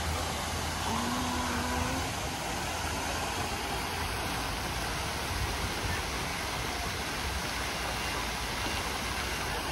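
Steady, even rushing noise with a low rumble underneath, with no single sound standing out: outdoor background ambience.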